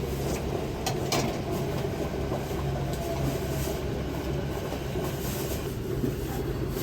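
A train on a rail platform: a steady rumble with a constant low hum and a few faint clicks.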